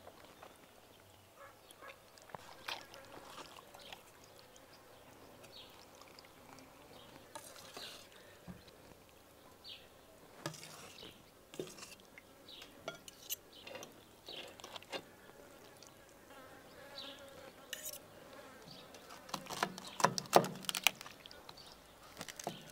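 Knife and fork clicking and scraping against a metal tray and a glass bowl while carving the soft roasted meat of a pig's head: scattered faint clinks, denser and louder near the end. A faint buzz in the middle, like a fly.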